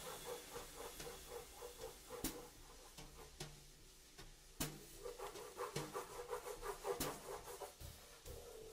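Faint swing drumming: soft, evenly spaced beats a little over once a second, with quicker light strokes between them that drop out for about a second midway.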